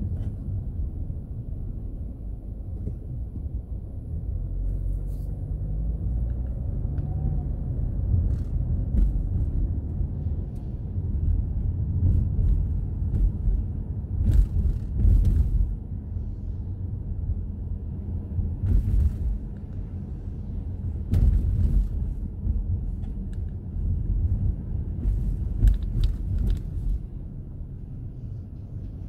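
Car driving on rain-wet streets, heard from inside the cabin: a steady low rumble of engine and road noise, with the engine note rising briefly about five seconds in. Several short hissing noises come through now and then.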